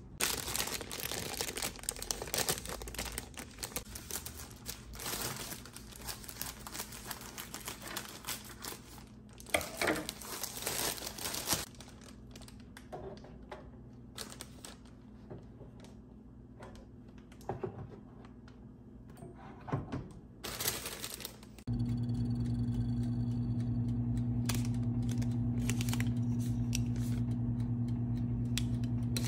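Plastic packaging crinkling and rustling as items are unwrapped and handled, with scattered clicks and taps. About 22 seconds in this gives way to a steady low hum with occasional light clicks.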